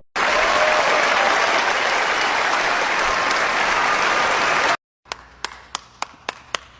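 Steady applause-like noise, an even crowd of claps, that cuts off abruptly after about four and a half seconds; then soft, evenly spaced ticks of a music track.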